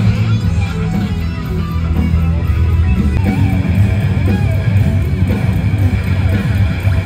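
Rock band playing, with electric guitar to the fore over bass guitar; the guitar bends and slides notes and holds a long high note through the second half.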